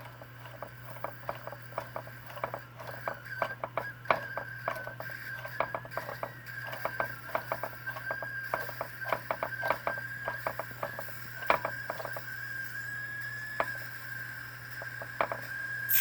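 Empire B42 twin-boiler toy steam engine heating up: irregular clicks and ticks from the hot boilers, over a faint steady whistle tone as a little steam begins to reach the steam whistle. A burst of steam hiss starts right at the very end.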